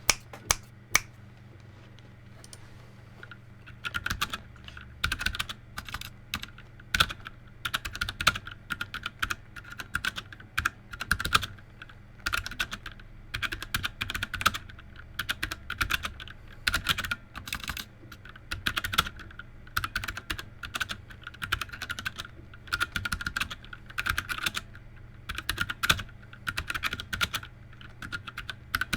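Typing on a mechanical keyboard with Cherry MX Red linear switches in a 3D-printed case, its stabilizers not yet lubed. A couple of single keystrokes at the start, then after about four seconds steady fast typing in runs of rapid clicks with short pauses.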